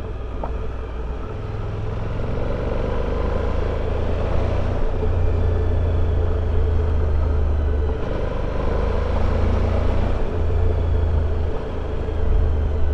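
Motorcycle being ridden along a gravel road: engine running at a steady pace with road and wind noise, growing a little louder about two seconds in.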